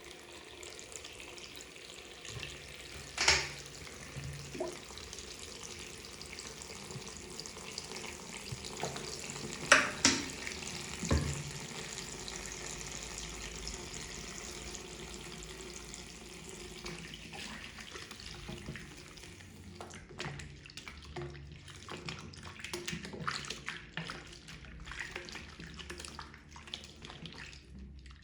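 Makeup sponge being washed under running water in a sink, with a few sharp knocks in the first half. After about twenty seconds the steady water gives way to short, irregular wet sounds.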